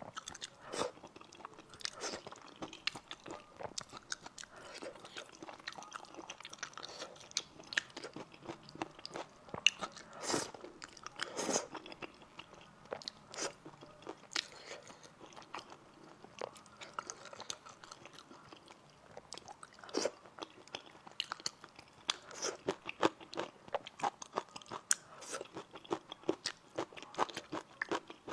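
Close-miked chewing of spicy stir-fried rice noodles: a steady run of short wet mouth clicks, with a few louder bursts about a third of the way in and again past the middle.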